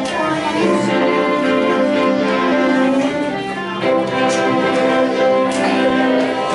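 A small string ensemble, cello and violin, bowing long sustained notes in a slow passage, moving to a new chord about four seconds in.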